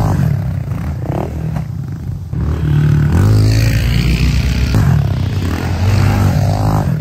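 Small dirt bike engines revving up and easing off, one bike after another, as riders launch off dirt jumps.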